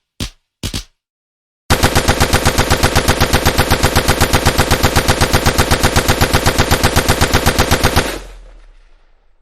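Machine gun firing: two short bursts of a few rounds, then a long sustained burst of about eight shots a second lasting some six seconds, which stops abruptly and leaves a fading echo.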